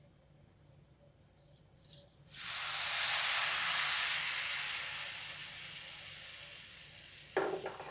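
Water poured from a glass onto a pan of granulated sugar, heard as a hiss that swells about two seconds in and slowly dies away over several seconds as the water soaks into the sugar.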